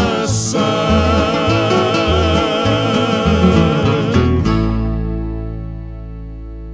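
The end of a country-western song: a singer holds a long final note with vibrato over guitar and a steady bass beat, then the band stops on a last chord that rings on and slowly fades.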